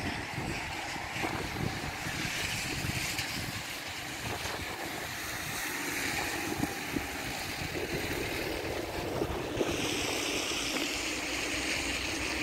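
Muddy floodwater rushing down a stream channel swollen by heavy rain, a steady hiss that grows stronger about ten seconds in, with wind buffeting the microphone.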